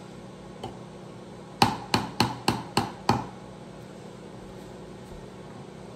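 Metal spoon tapped six times in quick succession against the rim of a small glass bowl, about three taps a second, each with a short ring.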